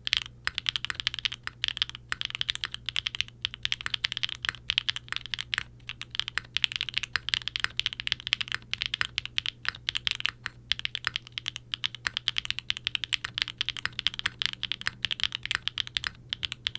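Continuous fast typing on a 60% mechanical keyboard with Gateron Ghost linear switches (POM housing and stem) on a POM plate, gasket-mounted without case foam, under doubleshot ABS keycaps. It gives a dense run of crisp keystroke clacks, with a faint steady hum underneath.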